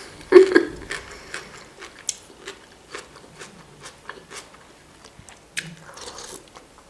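Close-miked eating sounds: chewing with wet mouth clicks and lip smacks while eating chicken noodle soup, with a short hum-like vocal sound about half a second in and a sip from the spoon near the end.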